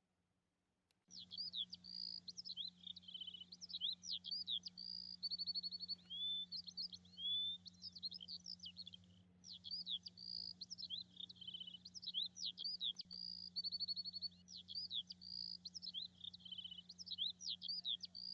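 Birds chirping and singing in quick whistled phrases and trills, starting about a second in. The same sequence appears to repeat, as in a looped birdsong recording, over a faint steady low hum.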